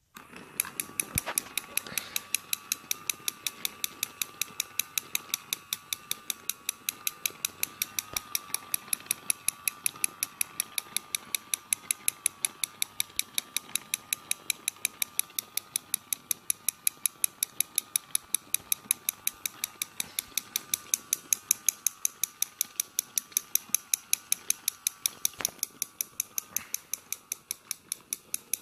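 Interlocking plastic toy gears of a TOMY gear set turning steadily, giving an even, rapid clicking of about five clicks a second over a faint steady whine.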